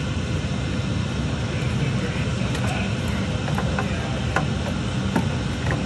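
A few faint clicks and taps as a Mazda Miata tail light housing is worked loose from the rear quarter panel by hand, over a steady low rumble.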